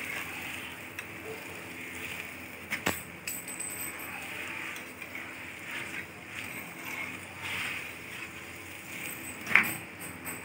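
Paratha cooking on an iron tawa over a gas stove: a steady hiss, with metal tongs clinking against the tawa, a couple of times about three seconds in and sharply near the end.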